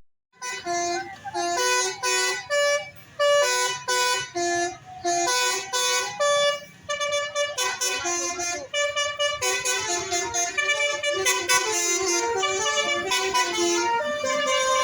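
Telolet bus horn, a multi-tone air horn playing a tune of short toots in changing pitches. About halfway through, the notes come quicker and run together.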